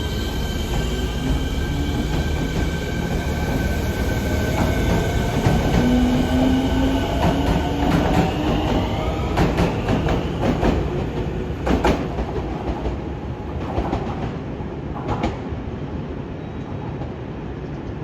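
Fukuoka City Subway 1000N series train (set 12) accelerating, its drive whine rising in pitch: the jet-plane-like abnormal noise of this set. About halfway through a run of sharp clacks comes from the wheels, and the sound then fades as the train moves off.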